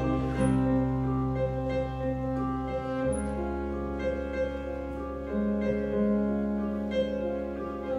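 School big band playing a soft jazz/swing passage: long held chords over a steady bass, with a few light taps.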